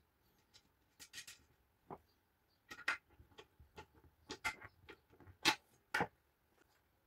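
Scattered metal clicks and light knocks from hand assembly of an aluminium extrusion frame: a screwdriver fastening a corner plate, with the screwdriver and parts handled on a wooden table. The two loudest knocks come about half a second apart near the end.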